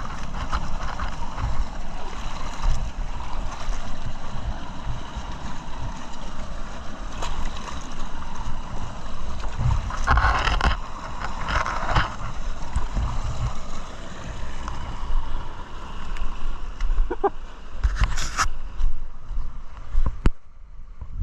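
Motorcycle running on an off-road trail, its engine mixed with heavy low rumble on the microphone, with a few louder bursts of noise about ten seconds in and again near the end.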